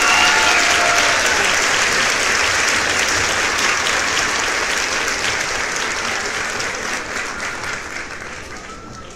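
A group of people applauding, many hands clapping together, the applause slowly fading away toward the end.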